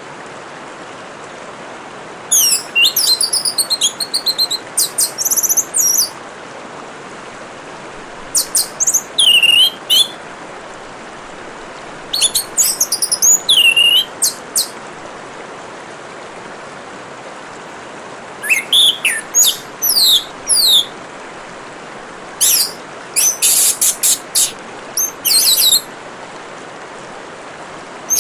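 Orange-headed thrush singing in five bouts of rapid, varied, sweeping whistled phrases, separated by pauses of a few seconds, over a steady trickle of running water.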